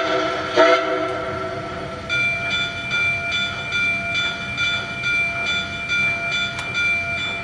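Onboard sound system of a model steam locomotive: two short whistle toots, then from about two seconds in the locomotive bell ringing steadily, a few strokes a second.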